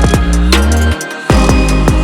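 Background music: electronic track with heavy sustained bass and drum hits, dropping out briefly about a second in.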